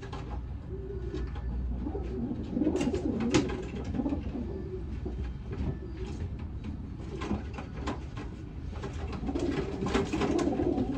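Racing pigeons cooing, with low, wavering coos rising and falling in bouts, and a few sharp clicks scattered among them.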